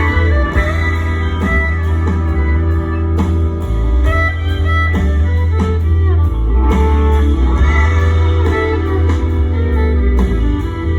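Live rock band playing a passage without singing: guitar over a heavy, booming bass, steady throughout.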